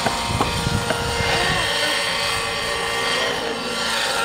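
Glow-fuel (nitro) engined RC helicopter flying low and fast: a steady, high engine and rotor whine made of several pitched tones together.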